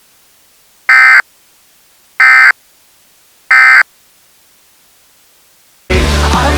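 EAS end-of-message data bursts: three short, identical squawks of digital data tones about a second apart, signalling the end of the emergency alert. Loud rock music starts near the end.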